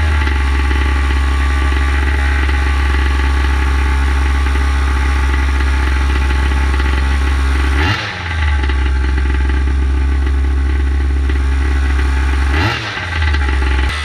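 Primal R/C Raminator's small gas two-stroke engine idling steadily during its heat-cycle break-in, with short quarter-throttle blips about 8 seconds in and again near the end.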